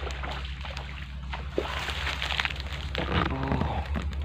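Water splashing and sloshing at the surface over a steady low rumble, with a short voice-like sound about three seconds in.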